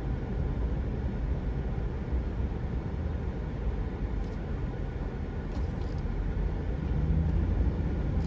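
Car driving slowly: a steady low engine hum and road rumble, growing a little louder near the end.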